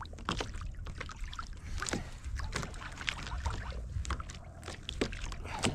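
Water slapping against a kayak hull in a light chop, with irregular sharp knocks and a steady low wind rumble on the microphone.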